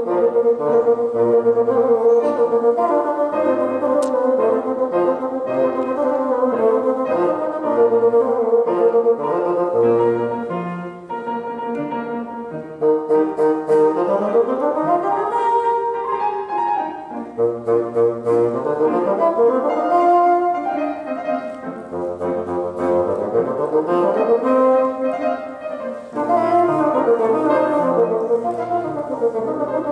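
Bassoon playing a melody with piano accompaniment. The bassoon holds sustained notes, with quick runs up and down the scale about halfway through and again later.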